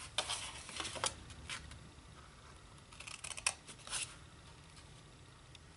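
Scissors snipping into designer paper, cutting short slits up the score lines: a few quick snips in the first second, and a few more about three to four seconds in.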